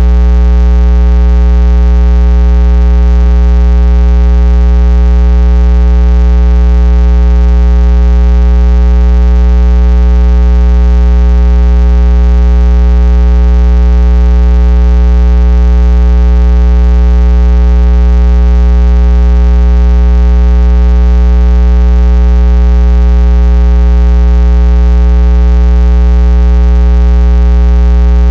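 Loud, unchanging electrical hum with a buzzy stack of overtones, steady throughout.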